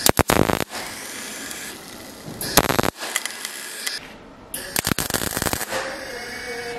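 MIG welder tack-welding steel square tubing: three short bursts of crackling arc, near the start, about two and a half seconds in and about five seconds in.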